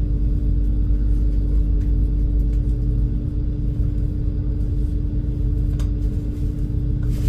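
Steady low rumble and constant hum of the high-speed ferry Super Jet "Dogo"'s engines, heard on board.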